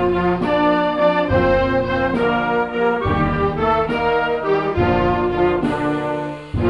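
Brass-led band recording of a Japanese high school song, playing sustained chords in a steady march-like phrase; the phrase breaks off briefly near the end before the next one begins.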